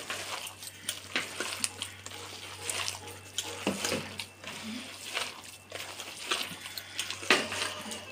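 A hand squishing and kneading a damp mix of grated carrot, cabbage and flour in a steel bowl: irregular wet squelches and scrapes.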